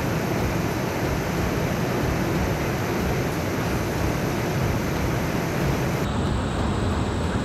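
Floodwater and rain rushing: a loud, steady noise without pauses. Its sound shifts abruptly about six seconds in, losing some of its hiss.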